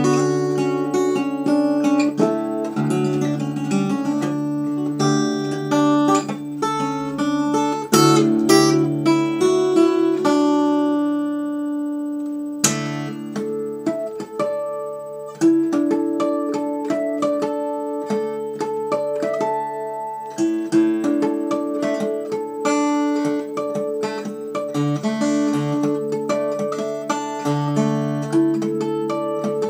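Solo steel-string acoustic guitar in open C tuning, fingerpicked: a steady run of plucked notes and chords. About ten seconds in, a chord is left to ring and fade for a couple of seconds before a sharp new attack starts the picking again.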